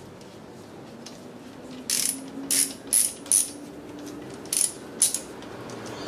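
A ratchet wrench with an extension works the oil pan bolts of a Mercedes 722.6 automatic transmission. Its pawl clicks in about six short bursts, one per back-swing, in the middle of the stretch.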